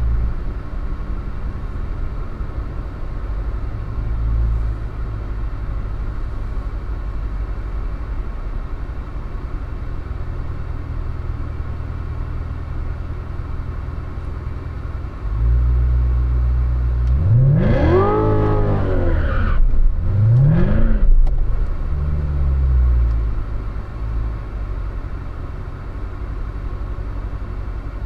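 Corvette Z06's V8 engine idling with a steady low rumble, then revved hard a little past halfway, the pitch climbing high and falling back. A second, shorter rev follows a couple of seconds later, and then it settles back to idle.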